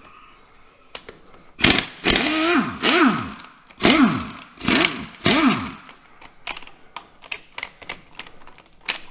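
Power impact wrench run in about five short bursts, its motor spinning up and winding down each time, while bolts are taken out of a Farmall 806's rear PTO housing. Light metallic clicks of tools and bolts follow.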